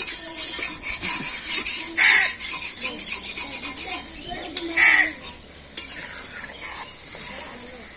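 Spatula stirring and scraping curry in a cooking pot, a run of quick rasping strokes through the first half that thin out later. A crow caws twice, loudest of all, about two and five seconds in.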